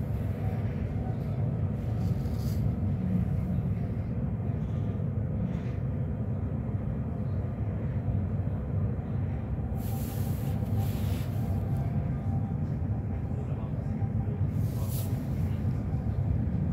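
Electric commuter train running, heard from inside the passenger car: a steady low rumble of wheels on rail, with short hissing whooshes about ten seconds in and again near the end.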